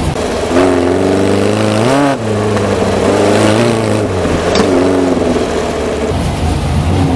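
Volkswagen Baja Bug's air-cooled flat-four engine revving under load on a rough dirt trail, its pitch climbing, dipping briefly about two seconds in, then rising and falling again, with rough road and wind noise underneath. A sharp click about halfway through.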